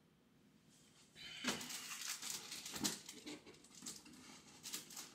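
Muffin packaging being handled and unwrapped, an irregular crinkling and rustling that starts about a second in and keeps going in quick crackles.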